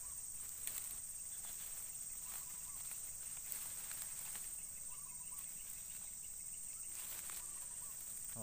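Steady high-pitched buzz of insects, with scattered rustling and clicks as a freshly caught eel and fishing line are handled, and a few faint short chirps.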